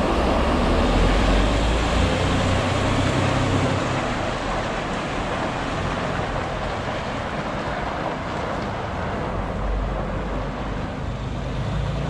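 Diesel engine of a milk tanker semi-truck running as the truck pulls away, slowly growing fainter.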